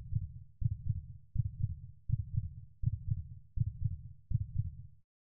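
Heartbeat sound effect: a low double thump repeating steadily about every three-quarters of a second, cutting off suddenly about five seconds in.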